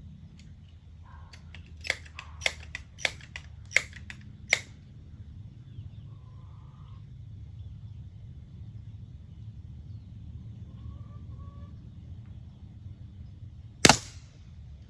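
Crosman 1377 multi-pump .177 pellet pistol: five quick sharp clicks about half a second apart, then near the end a single loud crack as it fires.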